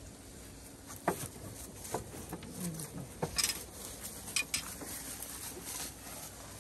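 Scattered light metallic clinks and taps, about a dozen irregular strikes, from hand tools and small engine parts being handled during a small-engine removal.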